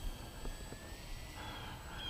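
Faint, thin whine of a small RC plane's SunnySky X2212 brushless electric motor and propeller flying past overhead, its pitch slowly rising.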